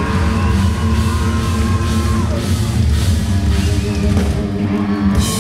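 Heavy metal band playing live: distorted electric guitars, bass and drum kit, loud and dense with sustained chords and a heavy low end.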